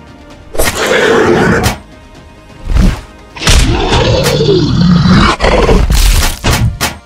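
Cartoon monster sound effects over background music: a loud growl about half a second in, a short thud near three seconds, then a long roar that rises and falls in pitch, followed by a quick run of sharp hits near the end.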